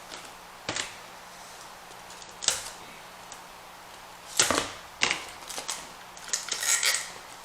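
Hard plastic toy packaging and parts being handled and pried open: a few separate sharp clicks and knocks, the loudest a little after the midpoint, then a run of crackling plastic near the end.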